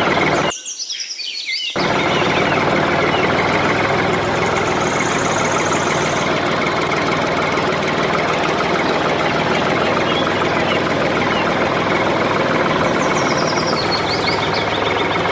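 A loud, steady machine noise, cut off for about a second shortly after the start and then running on, with birds chirping over it.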